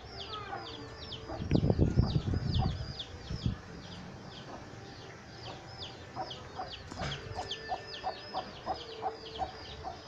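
Baby chick peeping without pause, a string of short high-pitched peeps each falling in pitch, about three to four a second. A hen clucks in a lower, evenly spaced run near the end, and a loud rumble of handling noise on the microphone comes about a second and a half in.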